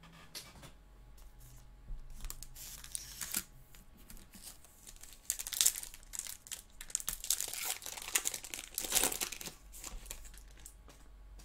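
Foil trading-card pack wrapper being torn open and crinkled as the cards are pulled out: a short burst of tearing and rustling, then a longer, louder run of crinkling about five seconds in.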